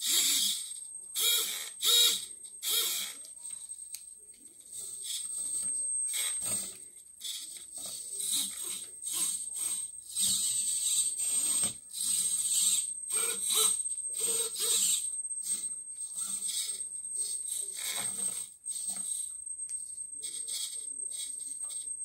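Servo motors of a 3D-printed robotic hand whirring in short, irregular bursts as its fingers open and close, the bursts growing longer after the first few seconds. A faint steady high-pitched whine runs underneath.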